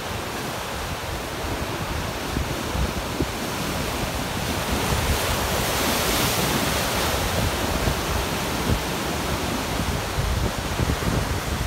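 Heavy storm surf from a passing typhoon breaking and washing over shoreline rocks, with wind buffeting the microphone. The wash swells to its loudest about six seconds in.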